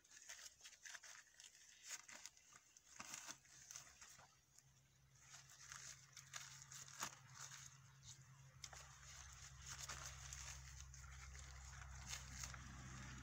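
Faint crinkling and rustling of handling, in many short crackles, with a low steady hum coming in about two-thirds of the way through.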